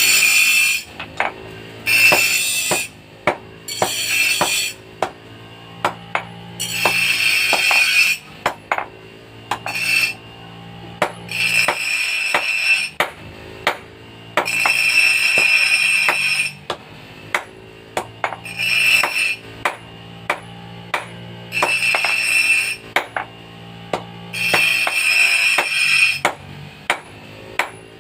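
Background music with a steady low drone, over repeated sharp metallic strikes from hammer work on metal. Irregular bursts of harsh noise come between the strikes, every two to four seconds.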